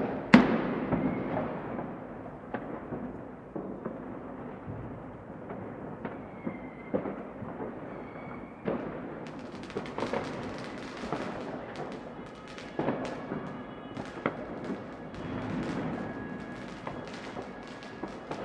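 New Year's Eve fireworks and firecrackers going off: one loud bang just after the start, then scattered booms and pops over a steady rumble of more distant explosions. From about halfway through, a dense run of sharp crackling reports.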